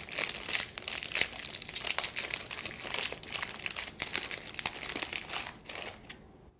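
Crinkling of a plastic Pocky snack wrapper as it is handled and opened: a dense run of small crackles that thins out and stops near the end.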